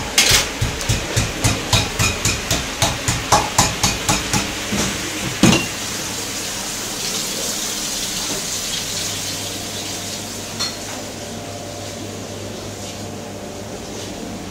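Rapid, even knocking of a utensil striking a hard surface in a commercial kitchen, about three strokes a second, for the first five seconds, ending with one louder knock. After that there is a steady hiss with an occasional single click.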